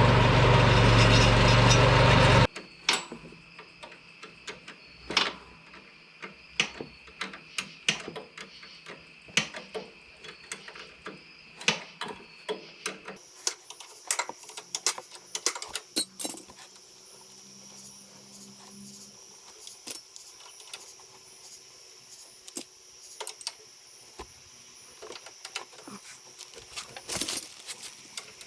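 A lawn mower engine running, which stops abruptly about two and a half seconds in. After it, scattered sharp metallic clicks and clinks of tools and parts being handled during mower repair work.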